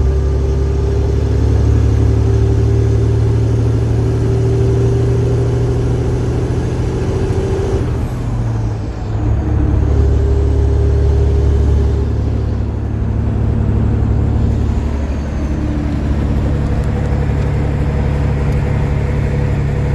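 Detroit Diesel Series 60 12.7-litre diesel engine running under heavy load in a loaded truck. Its note drops and picks back up about eight to nine seconds in, as in a gear change, then settles steady again, with smaller changes later on.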